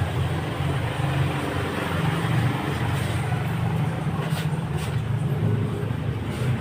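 Steady low mechanical rumble with a few faint ticks in the second half.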